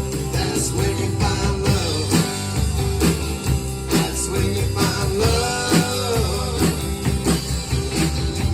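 Live rock band playing with a steady drum beat and bass under electric guitar, whose lead notes slide up and back down.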